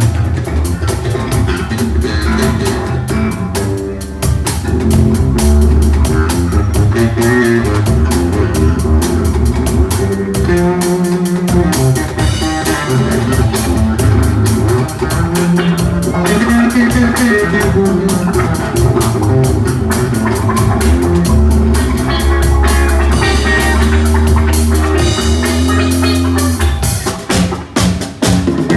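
Rock band music: drum kit, bass guitar and guitar playing together, briefly thinning out near the end.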